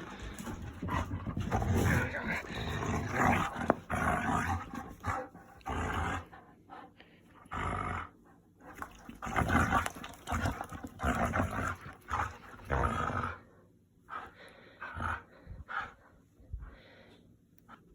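Pet dog growling in short, irregular bouts while playing, the bouts thinning out over the last few seconds.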